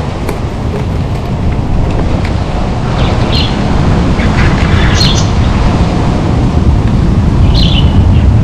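Wind buffeting the microphone as a steady low rumble that grows a little louder toward the end, with three short bird chirps: one about a third of the way in, one midway, and one near the end.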